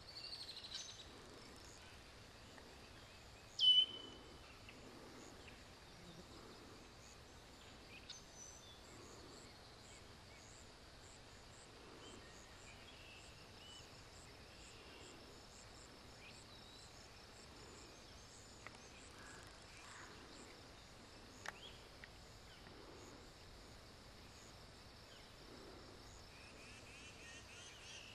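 Faint outdoor ambience of scattered birdsong and insects over a steady background hiss, with one brief, louder, falling high call about four seconds in and a sharp click about twenty-one seconds in.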